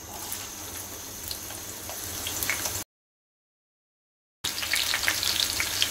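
Sliced onions frying in hot oil in an aluminium pan: a steady sizzle. It cuts out to dead silence for about a second and a half partway through, then comes back louder.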